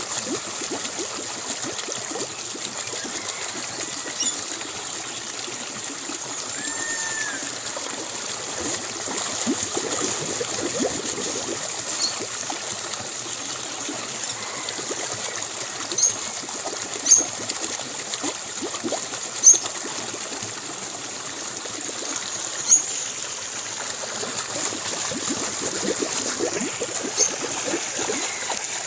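Forest stream trickling steadily under a constant high hum, with scattered short bird calls: one arched call about a quarter of the way in, then several brief sharp high chirps from the middle to near the end.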